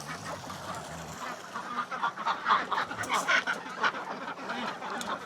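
A flock of domestic ducks quacking in a busy chorus of short, overlapping calls, growing denser about two seconds in, as the birds hurry out past the keeper.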